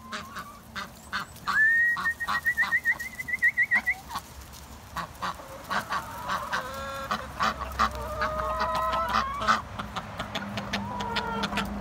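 Flock of hens and ducks calling as they hurry along: short clucks, quacks and honking calls, with a warbling whistle rising into a trill about two seconds in.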